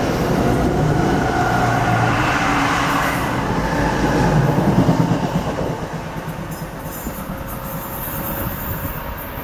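NJ Transit Arrow III electric multiple-unit train pulling out past the platform, its wheels running over the rails. The sound is loud at first and drops away about five to six seconds in as the last car clears.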